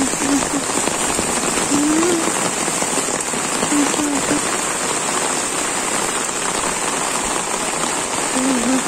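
Steady downpour of rain: a dense, even hiss of drops falling on the lane, leaves and surroundings.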